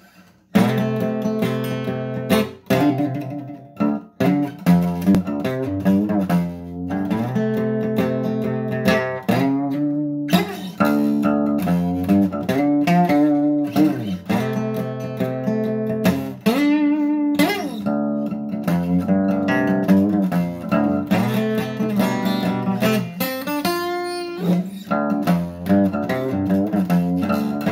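Acoustic guitar being played: chords struck and picked in a steady rhythm, with a few brief breaks between phrases.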